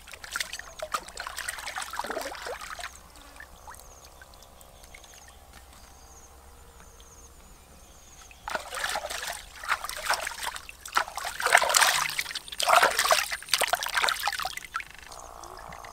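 Water splashing and trickling in irregular bursts for the first couple of seconds and again from about eight seconds on, with a quieter stretch between.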